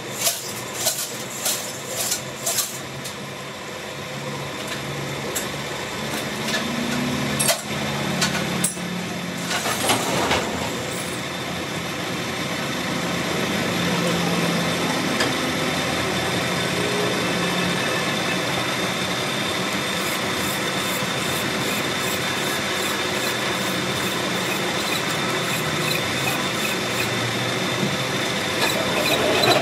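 Metal lathe running, turning a steel workpiece. A few sharp clicks sound in the first three seconds, and a steady high whine sets in about twelve seconds in.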